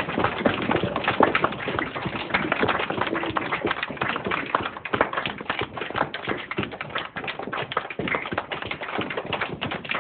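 A group of people making a pouring-rain sound with their hands and bodies: a dense, irregular stream of slaps and taps, easing slightly in the middle.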